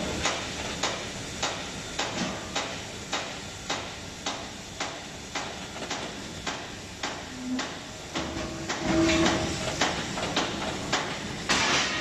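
Repeated hammer blows on metal, evenly paced at about three every two seconds, during disassembly of a wood chipper's screen. A short squeaking tone is heard a little past the middle.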